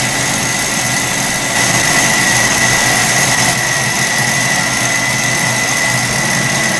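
Kenwood stand mixer's motor running steadily at speed with a high whine, its whisk beating Italian meringue while it cools after the hot sugar syrup has gone in.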